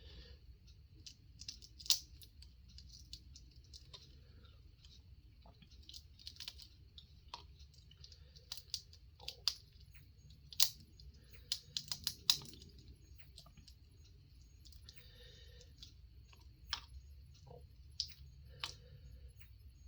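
Close-miked eating of a seafood boil: irregular sharp clicks and small cracks as the seafood is picked apart and handled, a few louder snaps around the middle.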